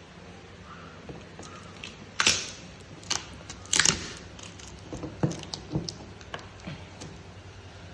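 Parcel packaging being opened by hand with small scissors: scattered crackles, rustles and clicks, the loudest bursts about two and four seconds in.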